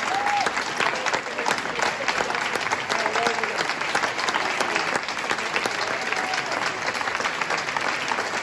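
Audience applauding steadily, dense clapping with a few voices calling out over it.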